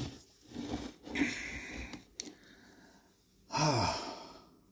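A man's sigh: a few soft breathy sounds, then about three and a half seconds in a louder, drawn-out exhale whose voiced pitch falls steadily.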